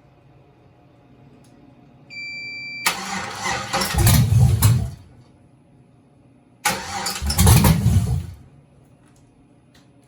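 A steady electronic tone comes on about two seconds in. Then the swapped-in LS V8 is cranked by its starter twice, each try lasting about two seconds and dying away without the engine staying running.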